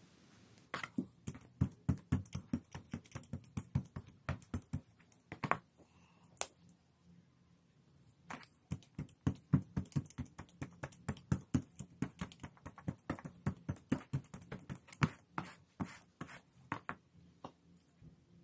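Brush dabbing acrylic paint onto a gelli printing plate: quick irregular taps, several a second, in two runs with a lull of about two seconds between them.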